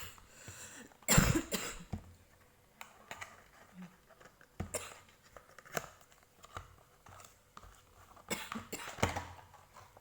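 A person coughing several times in short bursts, the loudest about a second in and more near the end, with light clicks and rustles of a boxed cough-syrup bottle being handled.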